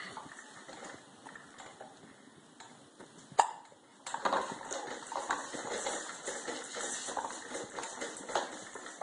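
A single sharp hiccup about three and a half seconds in, with irregular light knocking and scuffling of play before and after it.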